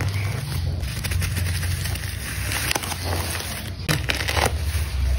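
Fingers rubbing, scratching and crinkling a parcel wrapped in plastic bubble wrap, with scattered crackles and small clicks over a low handling rumble.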